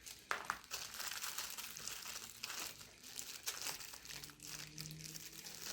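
Rustling and light clicking of small plastic JST connector leads and their packaging being handled, with a faint low hum coming in about four seconds in.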